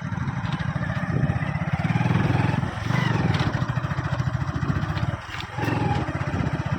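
Motorcycle engine running steadily under load on a rough hill road, easing off briefly a little after five seconds, with wind and road noise.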